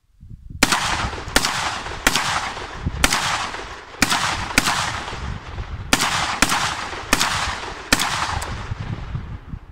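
Semi-automatic rifle-style long gun firing about ten shots in quick, uneven succession, with a short pause in the middle. Each shot is followed by a long echo.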